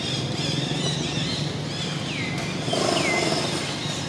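Outdoor ambience: a steady low rumble like distant traffic under high chirping, with two thin whistled calls that each fall in pitch and then hold, in the second half. A louder, lower pitched sound comes briefly just before the second whistle.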